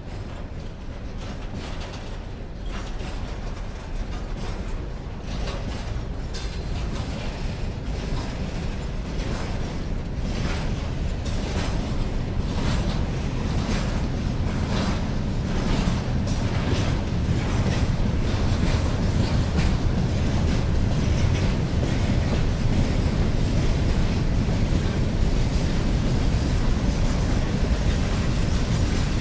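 Freight train drawing closer: a low rumble of wheels that grows steadily louder, with a run of sharp metallic creaks and clicks from the wagons in the middle.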